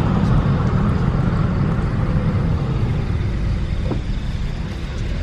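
Steady low engine and road rumble of a moving car, with a single faint click about four seconds in.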